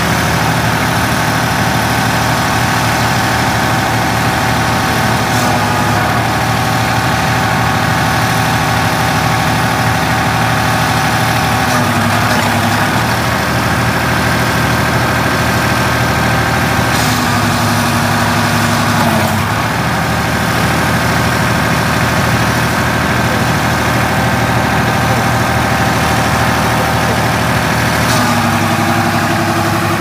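Backhoe's diesel engine running steadily, its note shifting up and down several times, with a couple of faint knocks.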